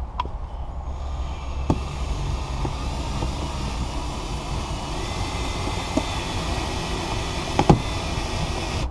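Cordless drill driving a windshield cut-out winder, running steadily with a whine from about a second in and winding in the cutting line to cut the old windshield loose. It stops abruptly at the end, with a few sharp knocks along the way, the loudest near the end.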